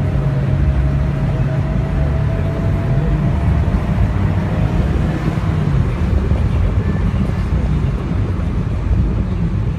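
Car engine droning at a steady cruise with tyre and wind noise, heard from the open cabin of a convertible with its top down. A faint engine tone rises slightly over the first few seconds, then blends into the road noise about halfway through.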